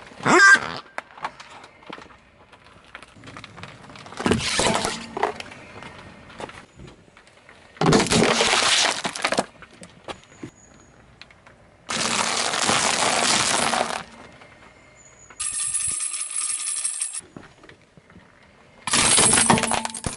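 A car tyre rolls over small objects one after another. First a squeaky rubber pig toy squeals briefly, then come several separate bursts of plastic crackling and crunching, a few seconds apart. The last burst, near the end, has a metallic jingle from a toy tambourine's jingles being crushed.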